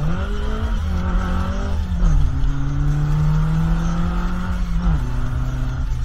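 Classic Austin Mini Cooper's A-series four-cylinder engine heard from inside the cabin while driving. Its note rises at the start, holds, then drops in pitch about two seconds in and again near the end, over a steady rumble of road and wind noise.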